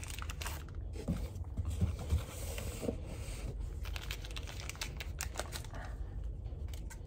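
A cardboard shipping box being picked and torn open by hand, without a knife: fingernails scratching and tapping at the packing tape, with a short tearing stretch about two seconds in.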